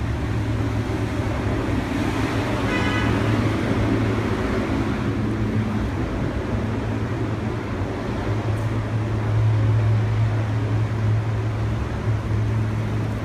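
Steady street traffic noise with a continuous low engine hum, and a brief high-pitched squeal about three seconds in.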